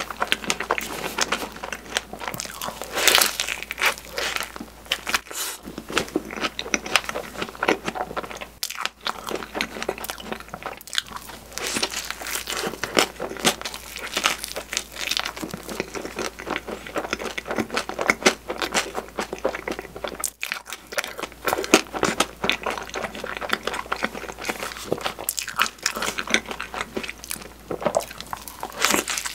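Close-miked eating of strawberry crepes filled with whipped cream: soft bites through the crepe and wet chewing of fresh strawberries and cream, a dense run of small clicks throughout.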